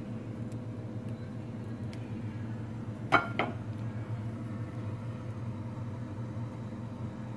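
Steady low hum of a kitchen appliance running, with a brief double clink of a dish about three seconds in.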